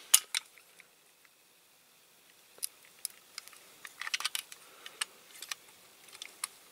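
Light, sharp clicks and taps of a small diecast metal toy model and its parts being handled, scattered with a quiet stretch early on and a quick cluster of clicks about four seconds in.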